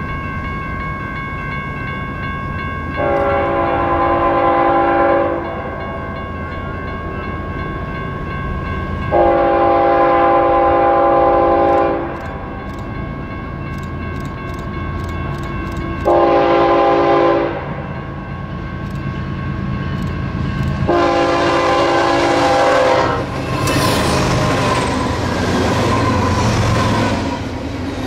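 Freight locomotive's multi-chime air horn blowing the grade-crossing signal, long, long, short, long, over a crossing bell ringing steadily. In the last few seconds the train passes close by, with loud rolling rumble and clatter of double-stack container cars.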